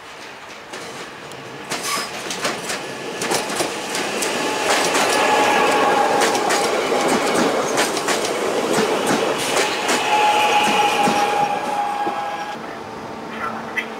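Electric multiple unit passing close by, its wheels clicking over rail joints and points. It grows to its loudest in the middle and fades as the last car goes by, with a high whine heard twice while it passes.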